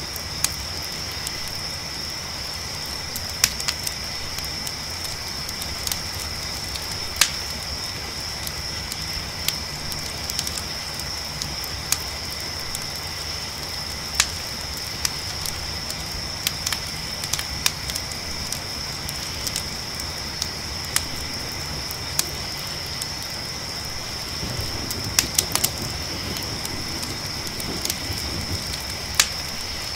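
Campfire crackling with sharp pops every second or two, a small cluster of them a few seconds before the end, over crickets chirring in a steady high drone and a low rumbling bed.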